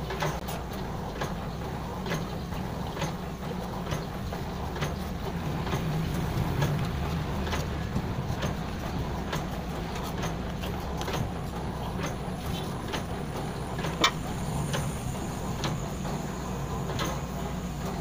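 Scattered metal clicks and scrapes of a filter wrench as a diesel engine's spin-on fuel filter is screwed on and tightened, with one sharper click about fourteen seconds in. A steady low hum runs underneath.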